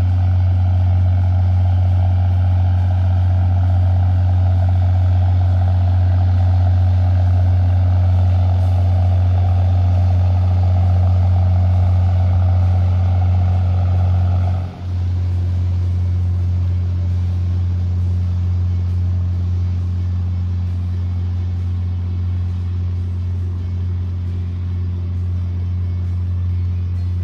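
Steady low engine drone. A hissing layer over it cuts off suddenly about halfway through, while the drone carries on.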